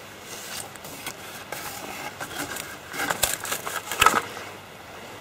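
Handling noises as a freshly caught crucian carp is unhooked by hand: rustling, light scrapes and small clicks, with a cluster of sharper clicks about three to four seconds in.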